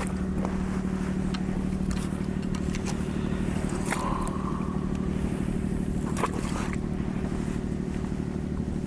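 Outboard motor running steadily at low revs, with a few light knocks and clicks over it.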